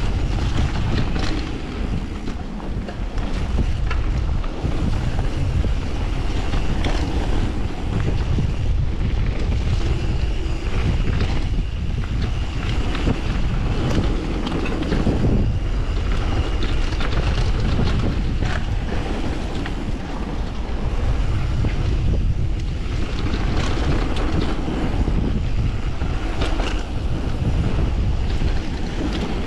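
Mountain bike riding fast down a dirt flow trail: wind buffets the riding camera's microphone over the steady rumble of tyres on packed dirt, with frequent clicks and knocks as the bike rattles over bumps.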